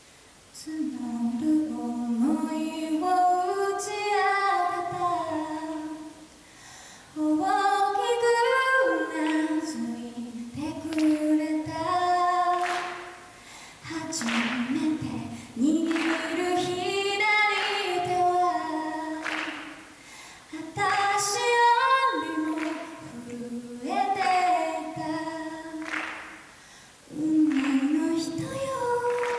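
A young woman singing solo and unaccompanied into a microphone, in long phrases with short breaks for breath between them.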